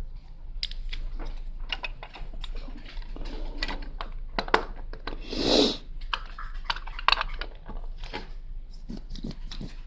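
Plastic Lego pieces clicking and rattling as they are handled and pressed together, a string of small irregular clicks, with a louder rustle about halfway through.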